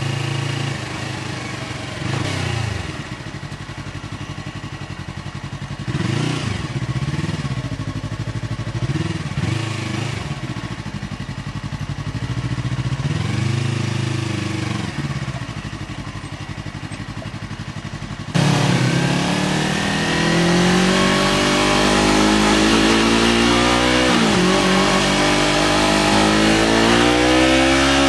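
Yamaha R3's parallel-twin engine breathing through an aftermarket SC Project exhaust, heard onboard while riding. It runs at low revs with a few short throttle rises, then about two-thirds through it is abruptly much louder and revs up, drops briefly at a gear change and climbs again.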